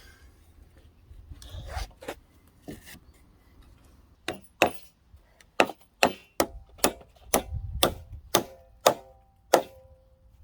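A hammer driving nails into timber: a few scattered knocks, then about a dozen sharp blows, roughly two a second, several with a short metallic ring.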